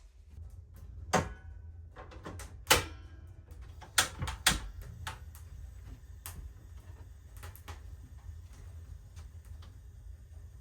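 A series of sharp knocks and clicks, four of them much louder than the rest in the first half, some with a short ringing tail, over a low steady rumble.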